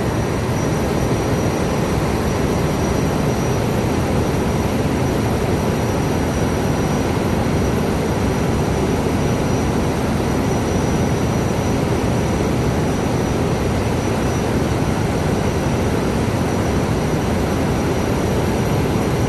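Loud, steady drone of running ship's engine-room machinery, with a faint high whine held throughout.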